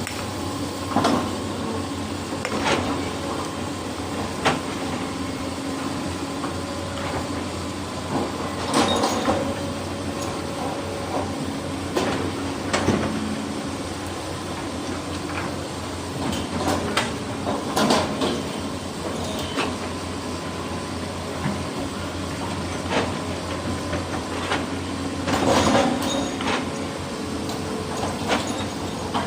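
Hydraulic excavator working: its diesel engine running steadily under irregular metallic clanks and knocks from the bucket and rock, loudest about 9, 18 and 26 seconds in.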